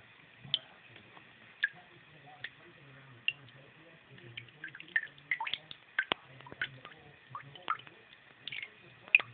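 Water dripping from a finger and a faucet spray head into a sink basin: short, irregular plinking drops, a few spaced ones at first, then a quicker run from about halfway in.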